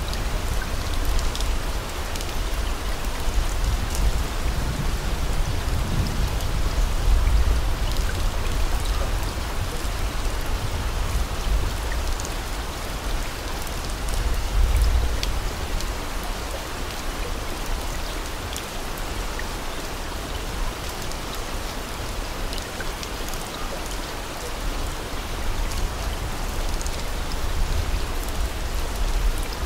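Steady rain: an even hiss of rainfall with scattered drop ticks and a low rumble underneath.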